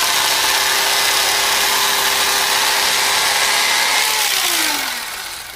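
Electric knife running as it cuts through seat-cushion foam. The motor is switched off about four seconds in, and its pitch falls as it winds down.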